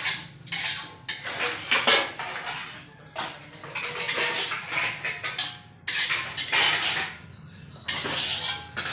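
A spatula scraping and knocking against a wok as stir-fried water spinach is tossed, in repeated strokes of one to two seconds each with short pauses between them.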